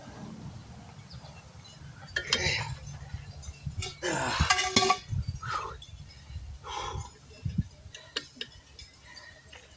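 Metal clinking and knocking, as of tools and parts being handled during tire work, with a louder rattling scrape about four seconds in.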